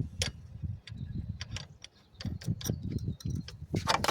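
Irregular light clicks and taps of small hard objects being handled, with a short louder rattle near the end.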